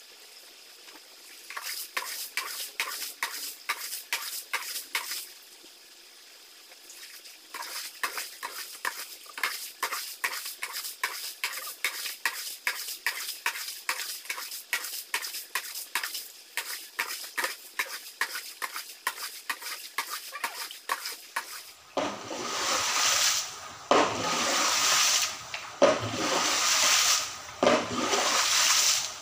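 Quick, even strokes of a broom sweeping shallow floodwater across a wet floor, about three a second, with a short pause early on. In the last several seconds there is louder splashing, in surges, as a plastic dustpan scoops up the water.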